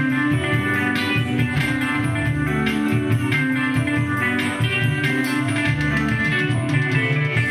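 Live band music in an instrumental passage, led by electric guitar over a steady bass line.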